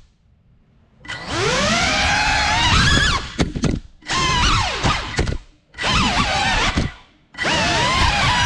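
GEPRC Cinelog 35 cinewhoop's brushless motors whining in throttle bursts: silent for about a second, then spinning up with a rising pitch, cutting out and revving again about four times before settling into a steady whine near the end. The stop-start punches are typical of the drone being recovered after a crash under furniture.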